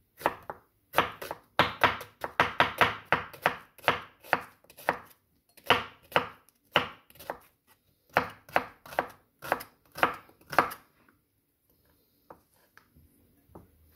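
Chef's knife slicing an onion into half-rings on a wooden cutting board: a quick series of crisp knocks of the blade on the board, then slower, more spaced strokes, stopping a few seconds before the end.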